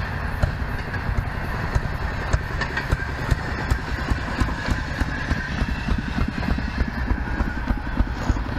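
Railroad speeder (motorized track inspection car) passing on the rails, its small engine running with a fast, even putter and regular sharp clicks over the top.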